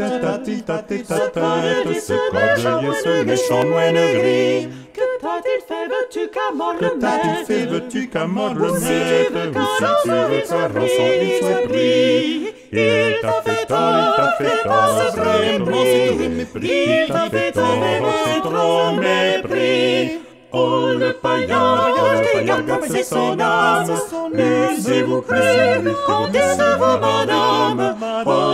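Four-part SATB vocal quartet singing a polyphonic song in French a cappella, with three short breaths between phrases, about 5, 13 and 20 seconds in.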